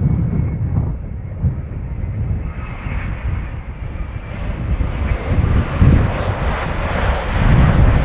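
Boeing 787's Rolls-Royce Trent 1000 turbofans on final approach, a steady jet rumble with a faint whine that swells louder from about the middle as the airliner comes low and close. A gusty low wind rumble buffets the microphone underneath.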